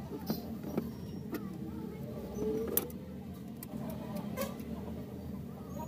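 A handful of small sharp clicks and taps from a screwdriver tester working the screw terminals of plastic modular switches while wires are tightened in them, the loudest about three seconds in, over a steady low hum.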